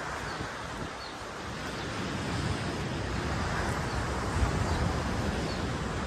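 Wind gusting over the microphone, with a low buffeting rumble that gets a little stronger after about two seconds, and leaves and palm fronds rustling.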